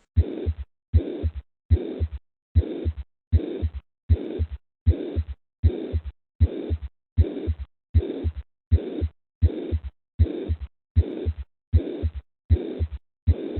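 Recorded heart sounds, about three beats every two seconds. Each beat is a first heart sound, then a steady harsh murmur filling the whole of systole up to the second heart sound, then a silent pause. It is a pansystolic murmur, the sign of mitral insufficiency (mitral regurgitation).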